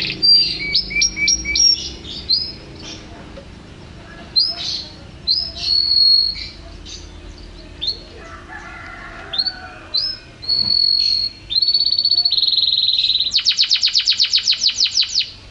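Domestic canary singing a varied song of quick whistled notes and held tones, which ends in a fast trill of evenly repeated notes, roughly nine a second, over the last two seconds.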